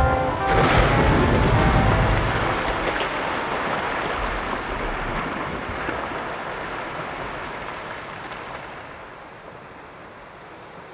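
Glacier calving: ice collapsing into the sea with a sudden crash about half a second in, then a long rushing rumble of falling ice and churned water that slowly fades away.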